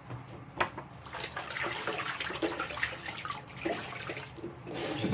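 Water running from a kitchen tap, with a few small knocks and clatters.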